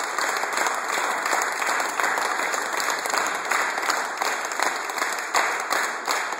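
Audience applauding, the dense clapping thinning toward the end into more separate, distinct claps.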